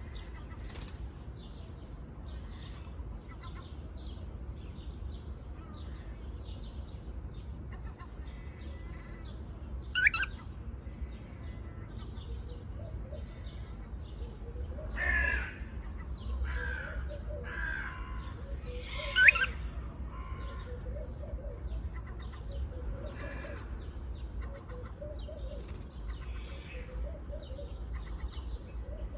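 Pet parrot calling: a steady run of short chirps broken by a few loud, sharp squawks, the loudest about ten and nineteen seconds in, over a low steady hum.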